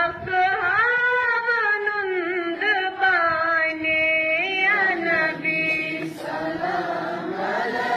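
Slow, chant-like singing of a prayer, with long held notes that bend up and down.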